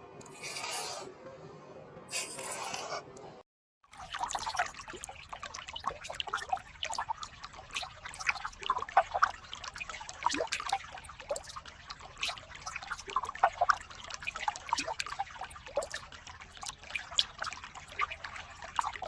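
Two short hissing bursts, then after a brief silence water trickling and dripping in quick, irregular drops.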